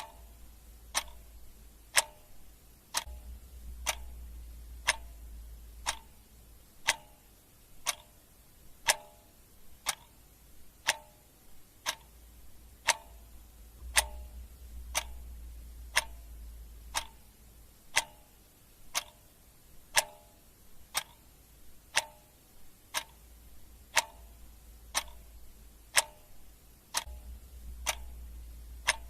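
Ticking-clock sound effect: one sharp tick about every second, the strokes alternating slightly in tone like a tick-tock. A faint low hum under the ticks swells and fades about every ten seconds.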